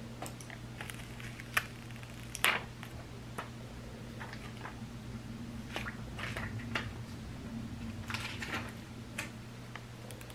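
Clear protective plastic film being picked at and peeled off a new iPhone XR: scattered crinkles and fingernail clicks, over the steady hum of a room fan.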